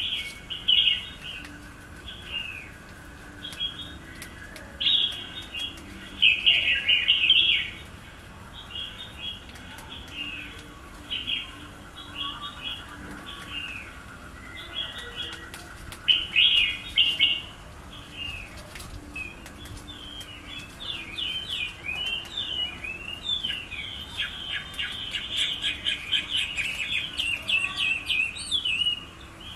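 Small birds chirping in short repeated phrases, with a faster, denser run of chirps near the end.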